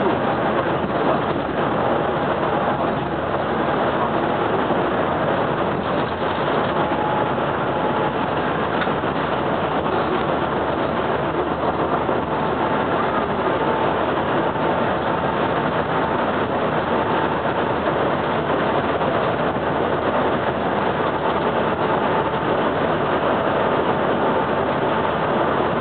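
Cabin noise of a GO Transit coach bus cruising on a freeway: a steady mix of engine and road noise heard from inside the bus, with a faint steady whine joining about six seconds in.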